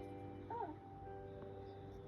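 Background music with soft sustained notes, and a short rising-and-falling cry about half a second in.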